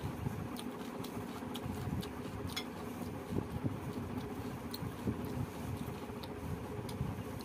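Eating by hand: fingers mixing rice and chicken curry on a banana leaf and mouth chewing, with a few scattered small clicks over a steady low hum.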